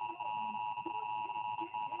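Emergency Alert System attention signal: two steady tones close together near 1 kHz sounding at once, with a fainter high tone above them.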